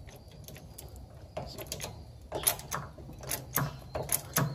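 A string of sharp, irregular metallic clicks and clanks, from steel jacking gear being handled beside a raised trailer. They start about a second and a half in and come more often and louder towards the end.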